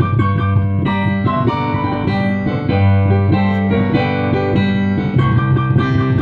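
Digital piano played with both hands: a strong low bass line under chords and quicker notes higher up.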